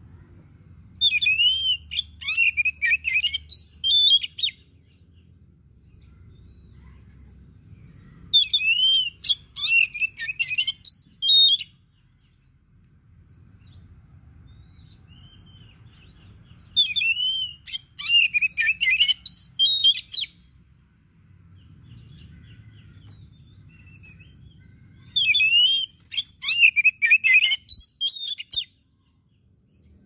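Male Oriental magpie-robin (kacer) singing in four bursts of about three seconds each. Each burst is a run of quick whistled and chattering notes that sweep up and down, with pauses of several seconds between bursts.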